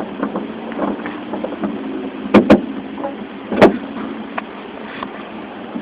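Two-month-old puppy sneezing: a quick pair of small, sharp sneezes about two and a half seconds in, then one more about a second later.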